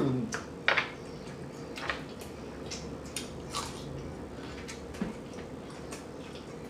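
Close-up eating sounds: chewing with wet mouth smacking, heard as a string of irregular sharp clicks, the strongest about three-quarters of a second in.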